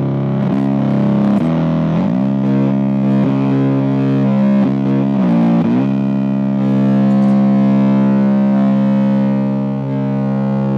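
A sustained distorted, guitar-like tone played through the Heisenberg Uncertainty Trem tremolo effects pedal. It holds a low drone whose pitch dips and slides back about two seconds in and again about five and a half seconds in, then holds steady.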